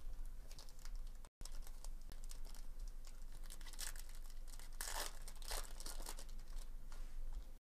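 Foil wrapper of a 2023 Bowman Chrome baseball card pack crinkling and tearing as it is opened by hand, with louder crinkles about four to five and a half seconds in.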